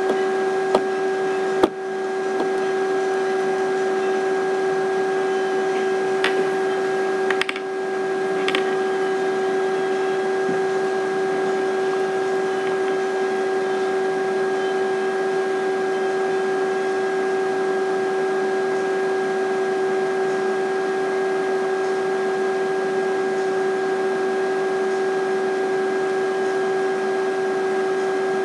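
A steady hum at one pitch with overtones, over an even hiss, broken by a few sharp clicks in the first eight seconds.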